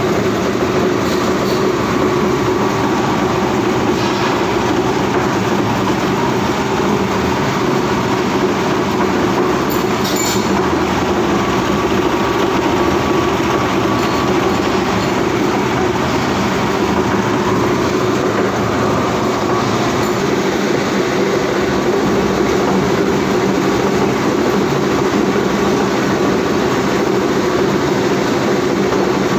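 Plastic agglomerator running: its bottom rotor spins at high speed in the drum with a loud, steady mechanical drone, while HD fishing net scrap is fed in to be chopped and densified.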